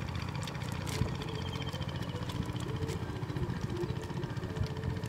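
An engine running steadily with a low rumble.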